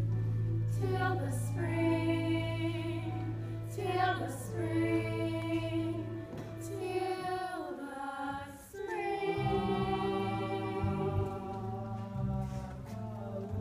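A women's chorus singing a show tune over a low held accompaniment. The chord underneath changes about nine seconds in.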